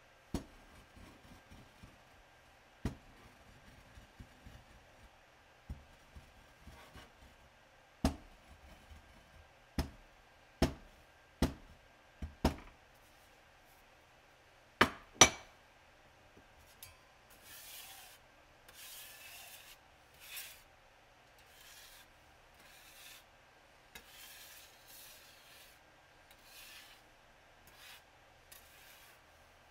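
A hand tool with a rounded head worked over yellow powder on a glass slab: about ten sharp knocks of the tool on the glass over the first half, then a run of short rubbing, scraping strokes.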